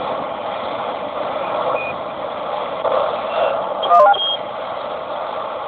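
CB radio receiver hissing with open-channel static through its speaker. About four seconds in there is a click and a quick run of short electronic beep tones.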